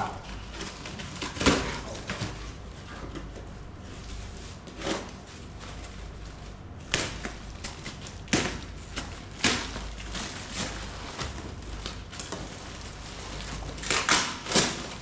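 Packaging and newly unpacked cricket gloves being handled by hand: irregular rustles, crinkles and light knocks, a few at a time, with a busier stretch near the end.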